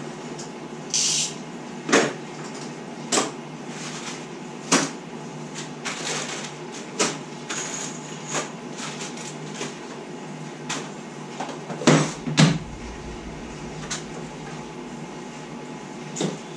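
Hand tools and hardware being put away into a plastic toolbox on a wooden workbench: scattered knocks, clicks and clatter, the loudest about two seconds in and a pair near twelve seconds, with a short scrape about a second in.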